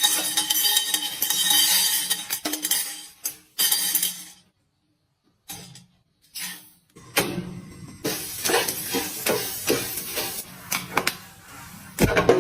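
Popcorn being made in a metal pot: stirring and clinking against the pot, then, from about halfway through, a dense run of quick sharp clicks and pops.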